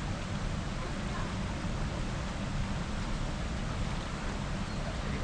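Shallow river rushing over rocks, a steady even noise with a heavy low rumble.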